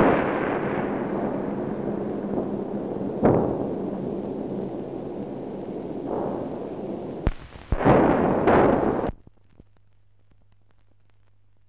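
A series of deep booms, each ringing out into a long rumble, with the heaviest near the start and about eight seconds in. They stop abruptly about nine seconds in, leaving only a faint low hum.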